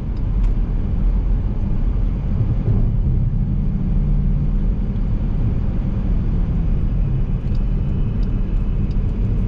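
Dodge Durango R/T's 5.7-litre HEMI V8 engine and exhaust running at a steady cruise, a low drone over road rumble.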